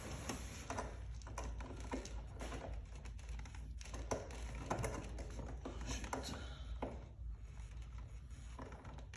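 A hand tool tightening a part back onto the engine's intake, making irregular clicks and light taps, a few each second.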